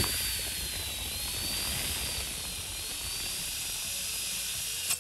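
Corded electric drill running with a carbide-tipped bimetal hole saw cutting into 2 mm stainless steel plate under only the drill's own weight: a steady motor whine whose pitch wavers slightly over a cutting hiss. It stops abruptly near the end.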